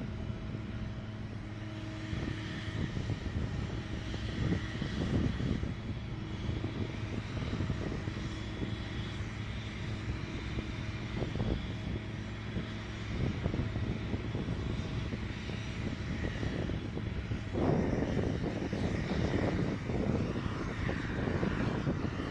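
Steady engine drone from ground equipment on a flight line, with a constant low hum, joined from about three-quarters of the way in by louder surges of rushing noise.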